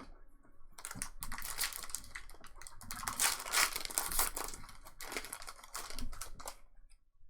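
Crinkling and tearing of a trading-card pack's foil wrapper as it is opened and handled, a dense crackle of small clicks that dies away near the end.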